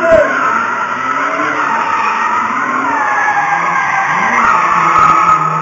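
Car tyres squealing through a sustained drift slide, the squeal wavering and gliding in pitch.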